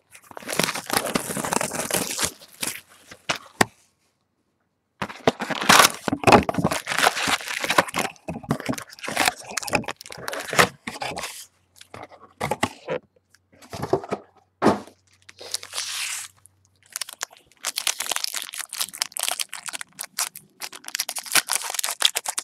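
Plastic wrapping and cardboard of a sealed box of football trading cards being torn open and handled, crackling and rustling in irregular bursts. The sound drops out completely for about a second around four seconds in.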